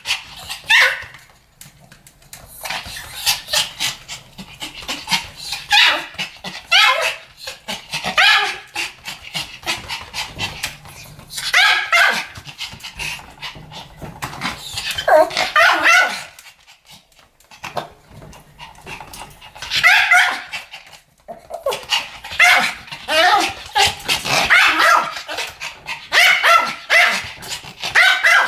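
Two Pomeranians barking together, high yappy barks in quick volleys with short pauses between them.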